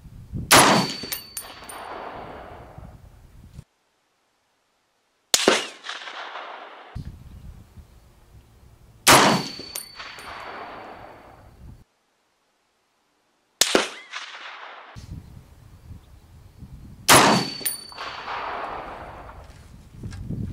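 Five rifle shots from an M1A National Match rifle in .308, each a sharp crack followed by a long echoing decay. A high metallic ring hangs on for about a second and a half after the first, third and fifth shots.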